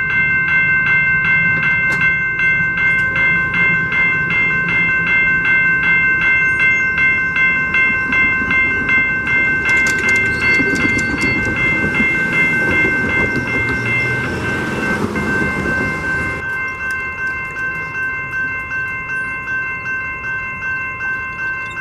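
Railroad grade-crossing warning bell ringing in a steady, even rhythm as a train passes. The train's rumble and wheel clatter swell partway through and cut off sharply about two-thirds of the way in, leaving the bell ringing.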